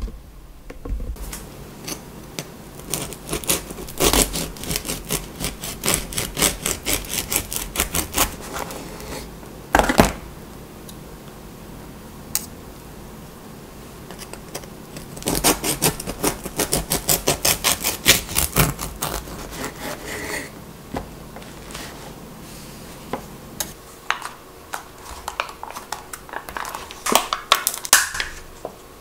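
A knife sawing through a crusty whole-wheat loaf on a wooden cutting board in quick back-and-forth strokes, in two long bouts with a pause between. Near the end, scattered clicks of a plastic cream cheese tub being opened.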